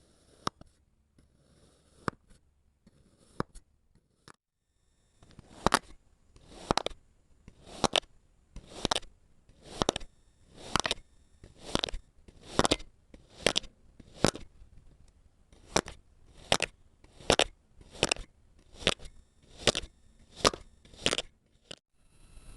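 Kinetic sand being cut, a crunchy slice about once a second, each stroke building to a sharp finish. A few light scattered clicks come first, and after about five seconds the cutting settles into a steady rhythm.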